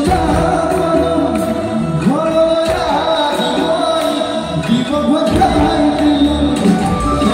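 Live band music with a male singer singing into a microphone over electric guitar and keyboards, amplified through stage speakers.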